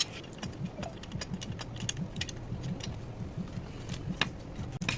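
Irregular light clicks and taps, a few to several a second, over a steady low hum.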